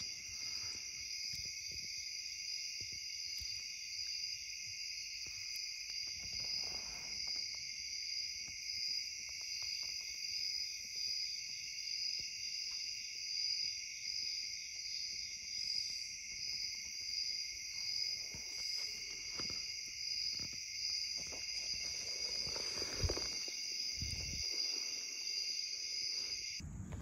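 Night-time insect chorus: a steady, high, shrill trill in two pitch bands with a faint even pulsing. It cuts off just before the end, and a few faint clicks and soft knocks come near the end.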